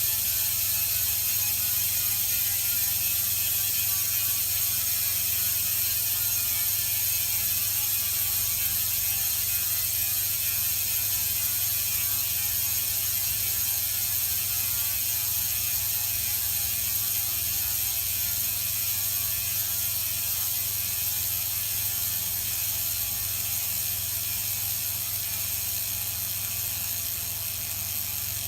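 Project 321 rear bicycle hub freewheeling: its six magnetic pawls click over a 216-point ratchet in a fast, continuous buzz. The pitch of the buzz falls slowly as the spin winds down, and it grows a little quieter near the end.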